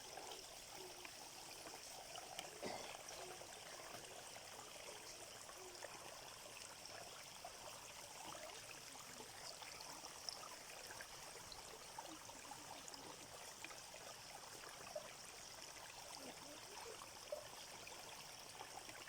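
Faint running stream water, a steady even rush with a few small clicks and splashes.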